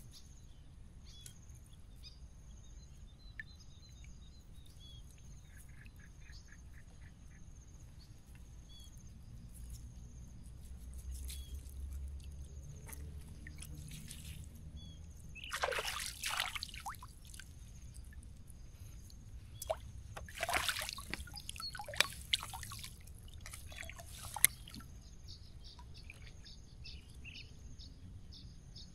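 River water splashing and dripping as a fishing net is lifted and worked in the water, with two louder bursts of splashing partway through and a few sharp clicks after the second. Birds chirp faintly over a low outdoor rumble.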